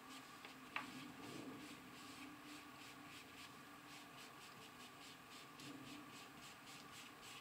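Faint, quick repeated strokes of a paintbrush dabbing acrylic paint onto felt, over a steady low hum, with one small click about a second in.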